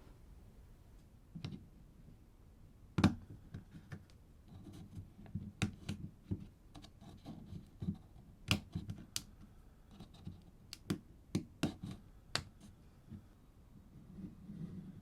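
Hands handling a camera and its packaging: irregular clicks, taps and light scrapes of plastic and cardboard. The loudest click comes about three seconds in.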